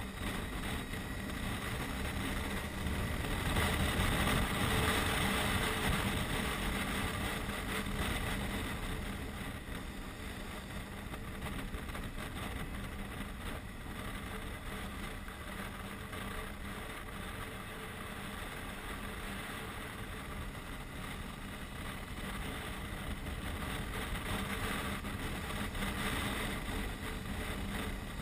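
Touring motorcycle engine running at road speed while riding, a steady engine note under a constant rush of wind over the helmet-mounted microphone, a little louder for a few seconds near the start.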